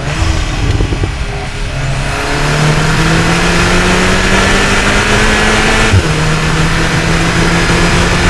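Cupra Ateca's turbocharged EA888 four-cylinder accelerating, picked up by microphones at the intake and exhaust: the engine note climbs steadily, drops suddenly about six seconds in as the DSG gearbox shifts up, then climbs again.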